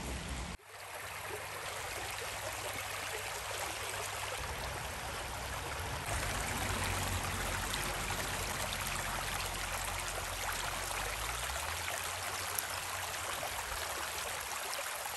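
Small woodland brook running over rocks: a steady rush of flowing water, briefly cut off about half a second in.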